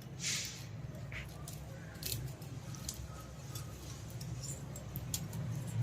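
Sparse light clicks and scrapes of metal engine parts being handled, over a low steady hum.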